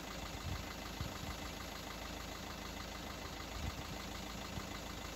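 Steady background hiss and rumble, with a few short low thumps about half a second in, at one second and near the end.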